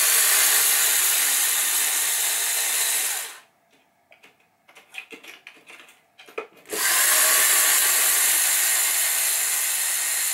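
DeWalt gyroscopic cordless screwdriver running in two steady spells of about three and four seconds, backing out screws, with a few light clicks and taps in the pause between.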